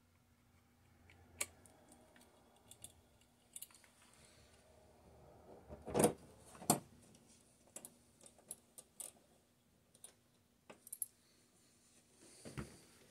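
Handling noise from mounting a Beelink SER5 Pro mini PC on a TV bracket: scattered small clicks and taps of the plastic case and small screws. Two louder knocks come about six seconds in, as the unit is pressed onto the bracket.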